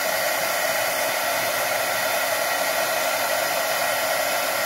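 Electric heat gun running with a steady rush of blown air, preheating a BGA chip on a circuit board for a solder reflow.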